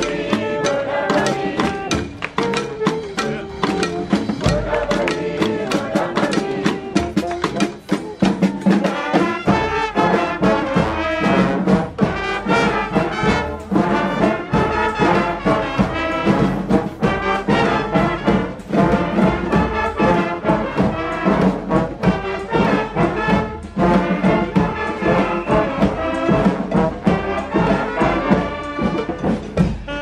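Street band of brass, saxophones and drums playing live: trombones, saxophones and sousaphone over a steady drum beat.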